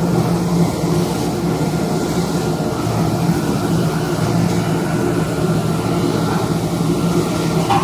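Automatic fabric cutting machine running with a steady, even mechanical hum.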